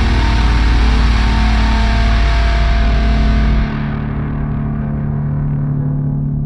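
Thall-style metal music: heavily distorted, effects-laden guitars over a very deep low end. A little past halfway the heavy bass cuts out suddenly and the sound thins to a fading, sustained drone.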